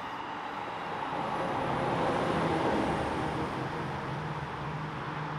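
Bilevel commuter train passing at close range: steady wheel-on-rail noise from the coaches, then the locomotive goes by with its engine hum. The sound swells to a peak about halfway through, then eases a little as the locomotive moves off.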